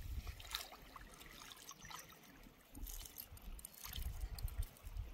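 Water trickling and splashing lightly, with scattered small clicks and knocks.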